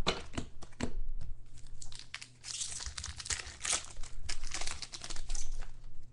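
A trading-card pack wrapper crinkling as it is handled and opened. A few sharp crackles come first, then a dense run of crinkling through the middle.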